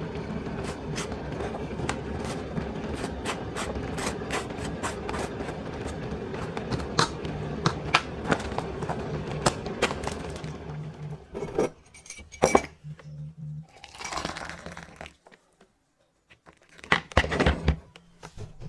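Table knife scraping and tapping as vegan spread is scooped from a plastic tub and spread over crisp toast on a china plate, many short scrapes and clicks over a steady hum. Near the end a cluster of louder knocks as a mug is set down by the plate.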